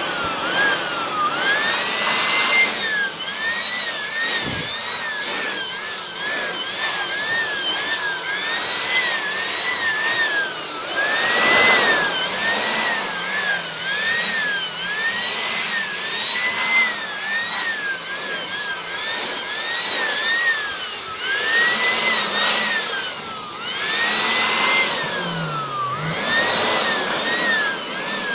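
Vacuum cleaner running while sucking dust from a network switch panel, its whine rising and falling in pitch over and over.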